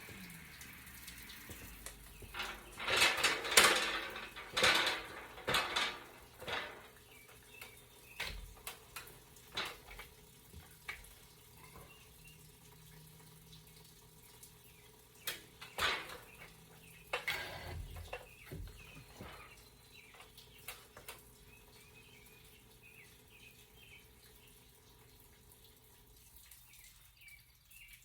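Scattered metallic clanks and knocks from work on a drain pipe, with water dripping and trickling. The knocks come thickest in the first few seconds and again a little past the middle, then thin out to faint drips.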